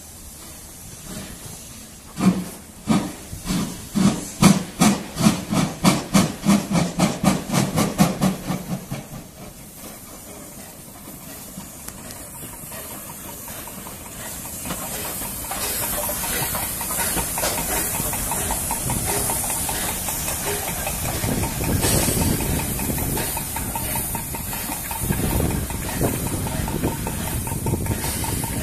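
USATC S160 2-8-0 steam locomotive getting under way: its exhaust chuffs come quicker and quicker for about seven seconds, then die away. From about halfway through, a steady hiss of steam and the rumble of the locomotive running grow louder and hold.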